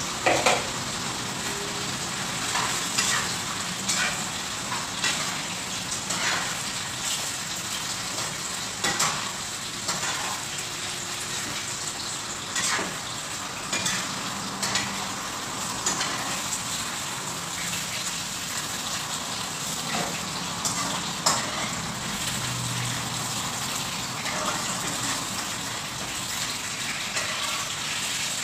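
Food sizzling steadily as it is stir-fried in a wok. A spatula scrapes and knocks against the pan now and then.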